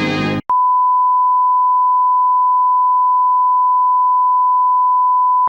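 Music cuts off, then a single steady 1 kHz test tone sounds for about five seconds and stops abruptly. This is the kind of tone a broadcaster plays at sign-off after the national anthem, before going off the air.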